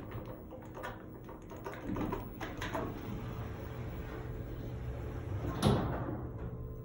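Elevator car doors sliding shut, closing with a thud about five and a half seconds in, over a steady low hum.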